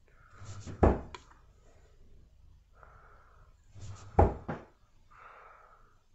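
Two 23 g Designa Smoothie V2 M3 steel-tip darts thudding into a Winmau Blade Dual Core bristle dartboard, one about a second in and the next some three seconds later, each with a short faint swish just before the hit.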